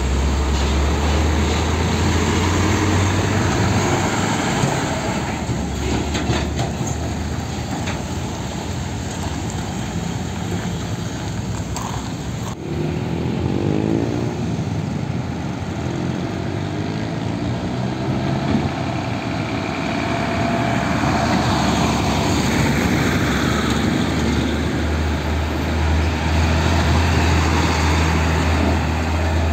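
Heavy diesel trucks passing close one after another, their engines giving a deep rumble. In the middle, one truck's engine note rises and falls several times as it pulls away.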